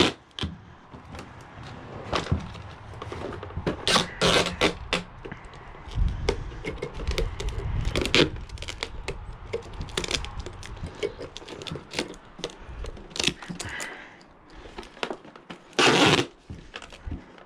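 Duct tape being unrolled and wrapped around a small FPV drone and truck body. There are many small knocks and scrapes of handling, and loud ripping rasps about four seconds in and again near the end.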